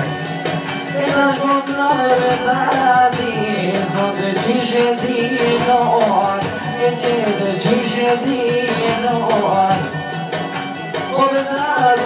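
Albanian folk-pop song with a steady drum beat, an ornamented wavering melody and singing into a microphone.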